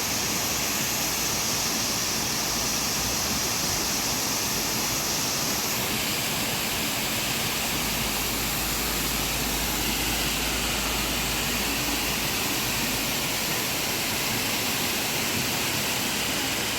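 Waterfall: a steady, unbroken rush of falling water, with the tone shifting slightly about six seconds in.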